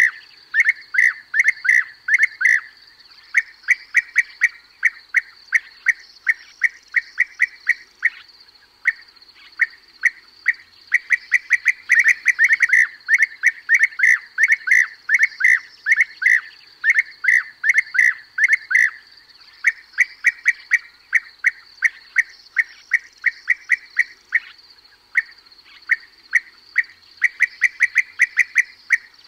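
European bee-eaters calling: short, repeated calls about three a second, in runs broken by brief pauses, over a steady high hiss. A bee-eater call recording used as a hunting lure.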